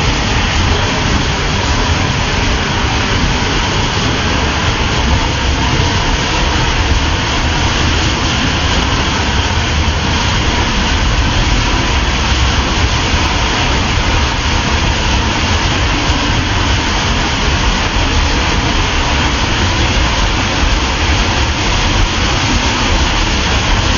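Steady, loud roar of a waterfall: falling water crashing without a break.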